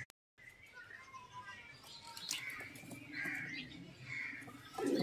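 Domestic pigeons cooing in their coop, with short bird chirps about once a second.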